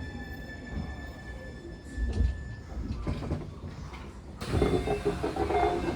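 Keio 1000 series train with Toyo IGBT inverter and fully enclosed motors braking to a stop. The inverter and motor whine fades out about two and a half seconds in, with low thuds from the car. A sudden hiss comes about four and a half seconds in as it stands at the platform.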